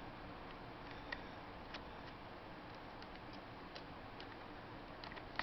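A few light, irregular clicks and ticks over a faint steady hiss: small tools and metal parts being handled while a Crosman 1377 air pistol is taken apart.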